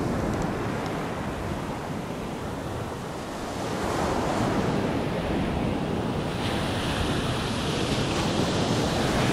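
Small waves breaking on a sandy beach, a steady wash of surf, with wind on the microphone.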